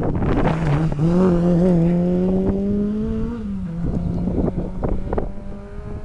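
Rally car accelerating hard past the spectator, its engine note climbing for a couple of seconds and then dropping away about three and a half seconds in. Wind buffets the microphone throughout.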